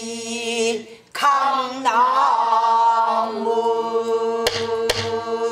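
A woman sings a drawn-out pansori phrase in full voice, with wavering, held notes and a short break for breath about a second in. Near the end come a few sharp strokes on a buk barrel drum.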